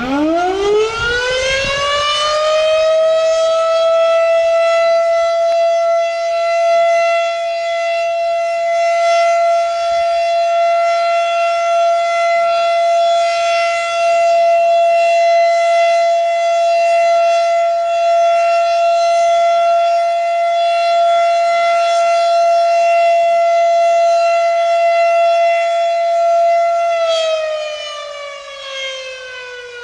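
Federal Signal Model 5 electromechanical siren sounding its monthly test. It winds up quickly to a single steady wail in the first few seconds and holds that pitch, then begins to wind down with a falling pitch near the end.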